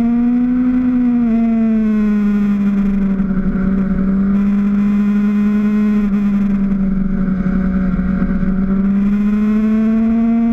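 Motorcycle engine of the camera bike running at steady high revs while cruising, its note sagging a little mid-way and climbing again near the end, with low wind noise underneath.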